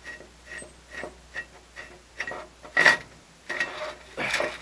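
Metal bearing pieces being worked loose by hand in a motor grader's drawbar trunnion housing: a sharp metal knock a little under three seconds in and a longer scraping clatter near the end. Under it runs a steady ticking, about two ticks a second.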